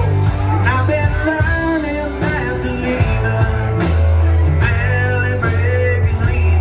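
Live rock band playing: a man singing over electric guitars, bass and drums, heard through the PA.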